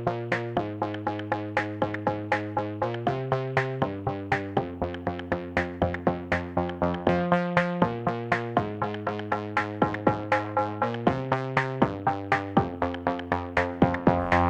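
Background music: an electronic track with a steady, even pulse of short notes over sustained chords that change about once a second.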